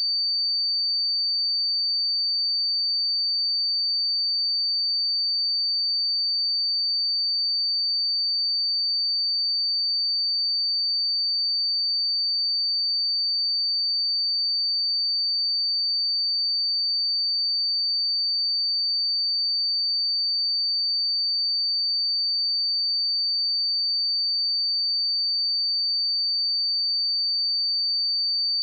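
A pure 4591 Hz sine-wave test tone, a single steady high-pitched tone held at constant level, used for checking speakers and headphones.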